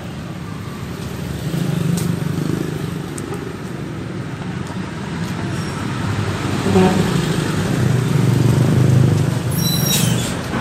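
Street traffic: the low rumble of passing motor vehicles, swelling about two seconds in and again in the last few seconds, with a short high squeal near the end.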